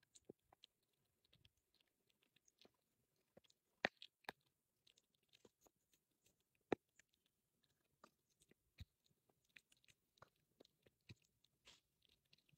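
A small dog gnawing a treat stick: faint, irregular chewing clicks and crunches, with a few sharper cracks about four seconds in and again near seven seconds.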